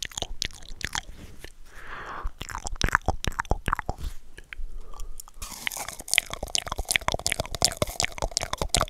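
Wet mouth sounds, tongue clicks and lip smacks, made up close to a microphone through cupped hands. About five and a half seconds in they carry on through a cardboard toilet paper roll held to the mouth, and the clicking turns denser and fuller.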